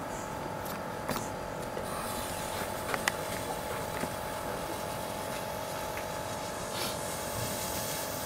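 Lit fuse of a firework salvo fizzing faintly on its stick as it burns down before launch, with a few small clicks in the first few seconds as it is lit. A steady hum runs underneath.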